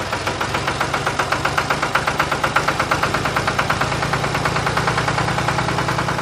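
A tractor engine chugging steadily: a low hum under a quick, even knock of several beats a second.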